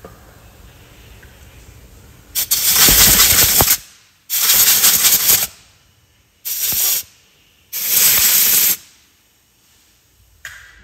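Four loud blasts of compressed air from an air-hose nozzle, each hissing for about half a second to a second and a half with short gaps between, blowing contact cleaner out of a slightly corroded electrical connector.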